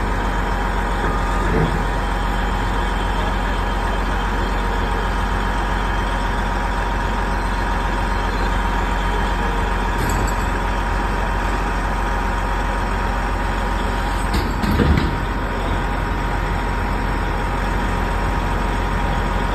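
Heavy-duty wrecker tow trucks' diesel engines running steadily, with a constant whine on top and a brief louder burst about fifteen seconds in.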